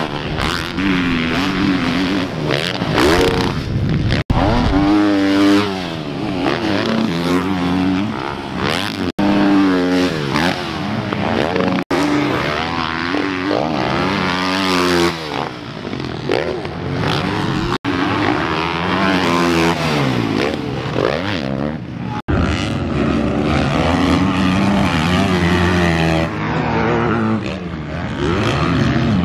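Dirt bike engines racing at high revs, the pitch climbing and dropping again and again as the riders open and close the throttle and shift gears. The sound breaks off and picks up again abruptly several times.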